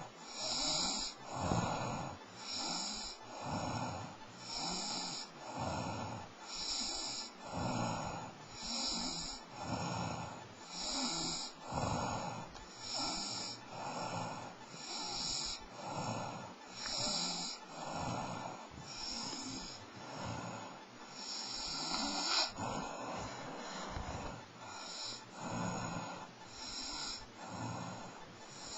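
A sleeping person snoring, one rasping snore about every second, in a steady rhythm.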